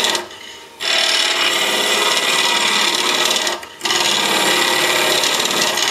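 A 3/8-inch spindle gouge cutting a wood blank spinning on a Grizzly mini-lathe, with its bevel rubbing the wood. The cut gives a loud, steady shearing hiss that drops away briefly twice, about half a second in and again near four seconds, then comes back.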